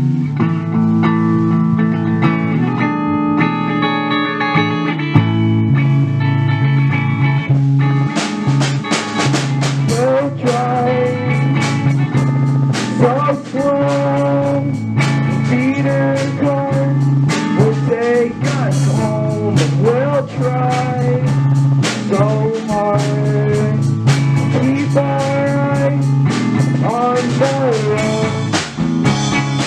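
Indie rock band playing an instrumental passage: electric guitar chords ring out alone at first, then drums with cymbals and the rest of the band come in about eight seconds in, under a lead melody that slides and bends in pitch.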